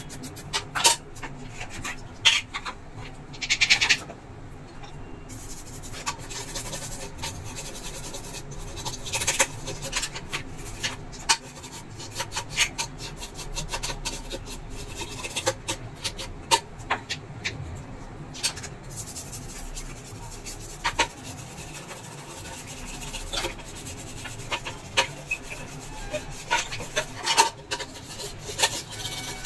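A toothbrush scrubbing an induction cooker's switch-panel circuit board in quick strokes, with scattered clicks and a few louder knocks in the first few seconds as the board is handled.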